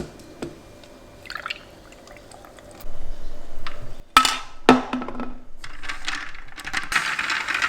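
Protein shake poured from a shaker bottle into a cup of ice, the pour starting about three seconds in, with two sharp clinks of ice or glass just after four seconds.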